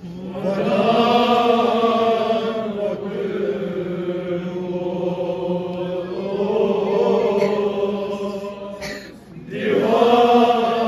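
Nauha, a Shia mourning lament, chanted in long held lines. The voice drops away briefly about nine seconds in and comes back louder.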